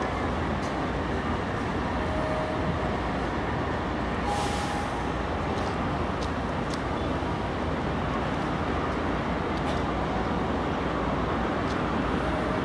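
Steady vehicle noise, with a short hiss about four seconds in and a few faint clicks.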